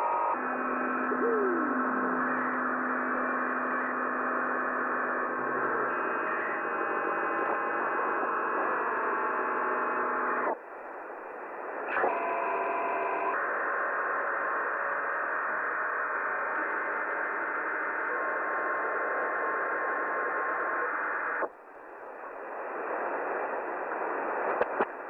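Radio receiver on 26 MHz (11-metre band) hissing with several steady whistling tones and a few that slide in pitch: unidentified signals that the uploader guesses could be railway sensors. The tones cut out abruptly about ten seconds in, return with a click soon after, and cut out again about twenty seconds in, leaving mostly hiss.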